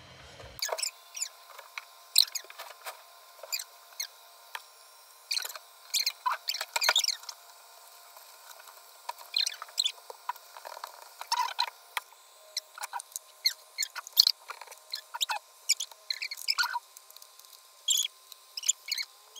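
Fast-forwarded sound of hands handling a small projector and its cables, heard as irregular short high-pitched squeaks and clicks.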